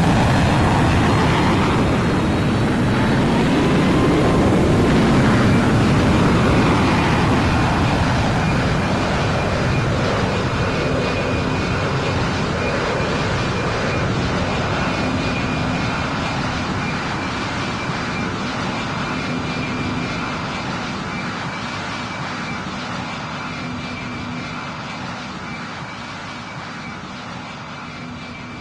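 Airplane engines passing close, loudest in the first several seconds and then slowly fading away, with a faint steady whine under the noise.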